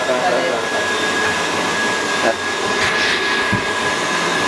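Tilt-head stand mixer running steadily with a constant high hum, its beater creaming a sugar, molasses and vanilla mixture.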